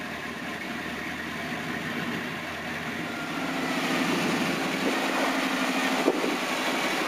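Lifted Chevrolet truck's engine running as it crawls up a rocky gully, growing gradually louder, with a single sharp knock about six seconds in.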